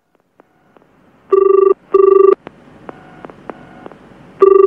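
Telephone ringing in a double-ring pattern: two short buzzing rings about a second in, then after a pause of about two seconds another pair starting near the end.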